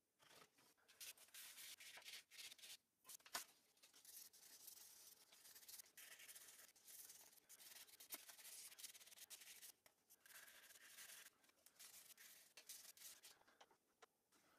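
Faint hand sanding with 600-grit sandpaper on the aluminum and epoxy pendant: a continuous, high-pitched rasping hiss of rubbing strokes, with short pauses about three seconds in, around ten seconds, and near the end.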